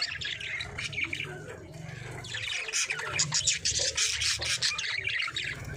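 Budgies chattering: a fast, scratchy warble of many short chirps, busiest from about two seconds in.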